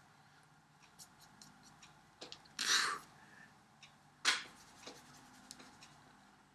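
Hand and clothing sounds of someone signing: faint scattered ticks, a brief rustle about two and a half seconds in, and a sharp slap of hands meeting just after four seconds, the loudest sound.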